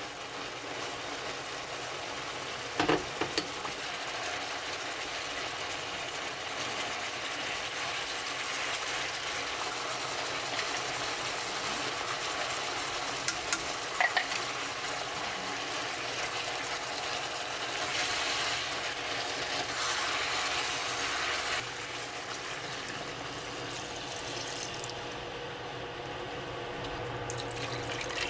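Kitchen cooking sounds: a steady hiss, broken by a few sharp knocks near the start and again about halfway. The hiss eases off about two-thirds of the way through.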